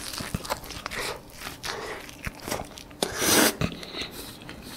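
Close-up mouth sounds of biting into and chewing a thick French toast topped with mascarpone cheese and fruit: wet chewing with small clicks and crunches. There is one louder stretch about three seconds in.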